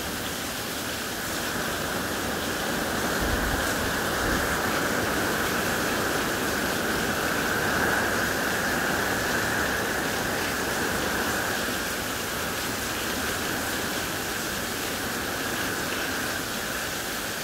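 Heavy hurricane rain falling steadily in a continuous hiss, swelling a little a few seconds in and easing off after about ten seconds.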